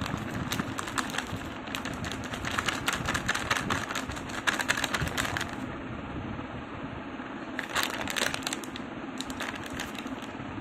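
Plastic flour packet crinkling and crackling as maida is poured from it into a steel bowl: a long run of crackles through the first half, then two short runs near the end.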